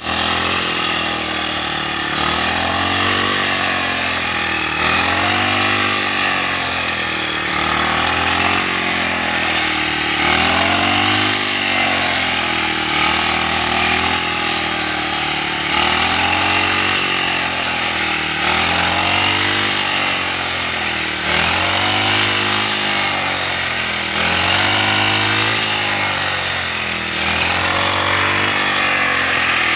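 Engine of a handheld crop reaper running steadily, its pitch swelling up and falling back every two to three seconds.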